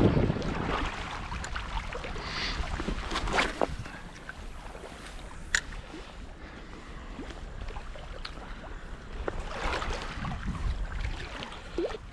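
Wind on the microphone over sea water washing at the shore, with a few short sharp sounds.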